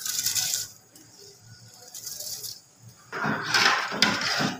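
Rice grains poured into a pot of boiling broth, a brief hiss at the start. About three seconds in comes a louder scraping, clattering noise with a few clicks as the rice is stirred in the steel pot.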